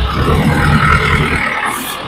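Delivery truck's engine running hard while the truck is stuck in mud, loudest for the first second and a half and then easing, with a short hiss near the end.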